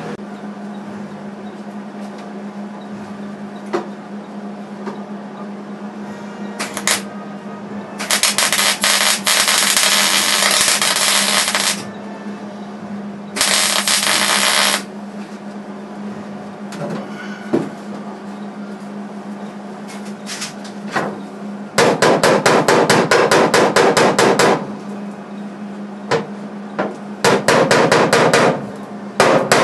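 Arc welding spot welds into a 1974 Plymouth Duster's sheet-metal floor pan: two crackling hisses, one of about four seconds and one of about a second and a half. Then two runs of rapid hammer taps on the pan near the end, over a steady hum.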